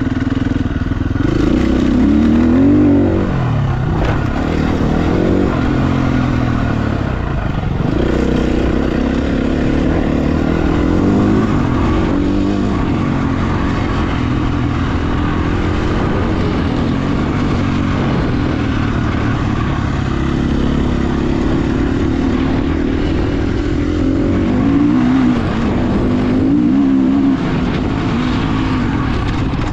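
Husqvarna FE350 single-cylinder four-stroke dirt bike engine being ridden, its pitch rising and falling again and again as the throttle is opened and closed, with a steadier stretch in the middle.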